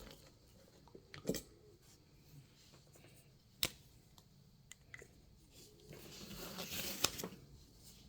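Faint tabletop handling sounds: a few light clicks, then about six seconds in a second or so of scratching, a pen marking off a paper checklist.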